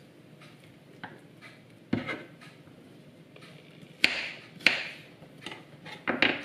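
Kitchen knife on a wooden cutting board as a garlic clove is cut: several sharp knocks, the loudest two about halfway through, with soft rubbing and handling noise between.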